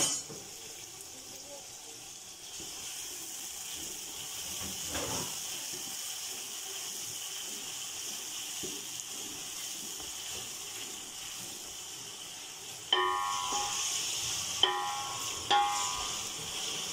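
Sliced onions frying in hot ghee in an aluminium pot: a steady sizzle as a wooden spoon stirs them. Near the end there are three short knocks, each with a brief ring, as the spoon strikes the pot.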